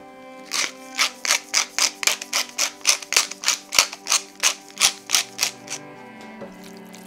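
Pepper mill grinding black pepper: a quick run of crunching, ratcheting clicks, about four a second, lasting some five seconds before stopping.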